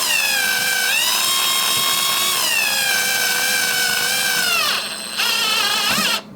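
Power drill driving a doorknob's fine-thread mounting screw, its motor whine rising and falling with trigger speed. It winds down near the end, gives one short spurt and stops.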